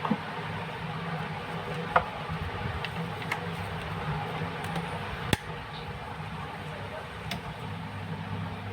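Steady low hum and background noise, with about five sharp clicks scattered through it.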